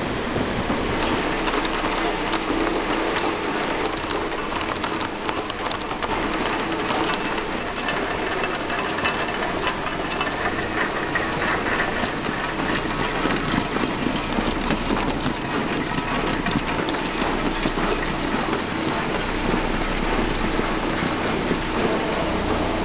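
Ice cream factory machinery running steadily: a constant mechanical hum with a busy patter of small clicks and rattles.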